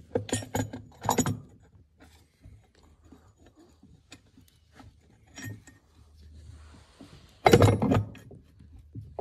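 Steel transmission gear and shaft clinking and clattering against the mating gear and the aluminium case as it is worked down into the housing. There is a quick run of sharp clinks in the first second or so, scattered light ticks after that, and a louder burst of clatter about seven and a half seconds in.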